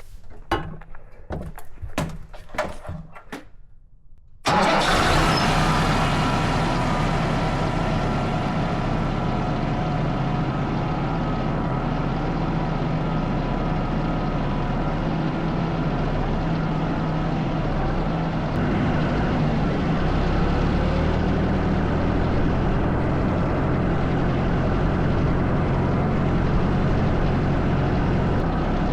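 A few sharp clicks, then from about four and a half seconds in a diesel engine, most likely the Yanmar VIO50 excavator's, running steadily at a constant speed.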